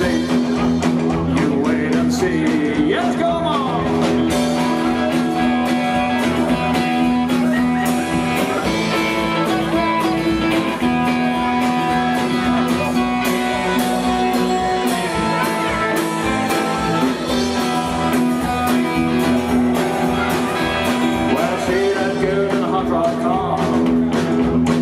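Live rock and roll band playing loud and steady: electric guitars over a drum kit, in a stretch of the song where no words are sung.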